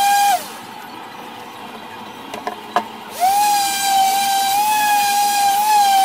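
Electric random orbital sander running with a steady high whine, then switched off just after the start, its pitch falling as it spins down. After a few seconds of quiet with a couple of light clicks, it is switched on again, the whine rising to speed as it sands the wooden top.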